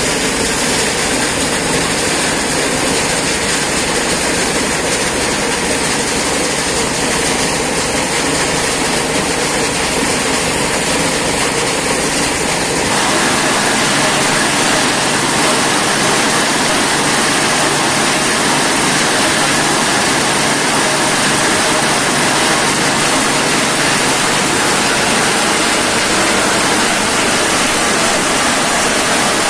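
Wheel loader's diesel engine running steadily. About thirteen seconds in, it cuts to the steady, even noise of a stone crusher plant: crushed stone rattling over a vibrating screen and onto a conveyor belt.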